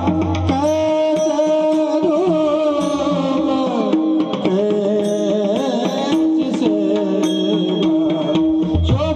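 Devotional singing with a melody line of long held notes that glides between pitches, accompanied by a mridang. The mridang plays deep bass strokes at the start and again near the end, with lighter strikes in between.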